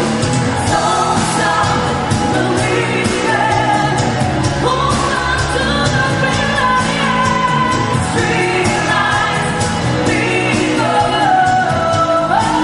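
A band playing a pop-rock song, with a lead singer's voice carrying the melody over a steady drum beat.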